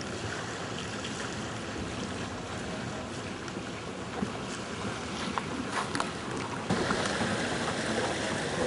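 Steady outdoor wind and water noise with a few faint clicks, growing a little louder about two-thirds of the way in.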